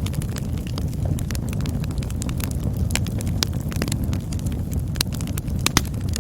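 Wood campfire burning: a steady low rumble of the flames with irregular sharp crackles and pops from the burning wood.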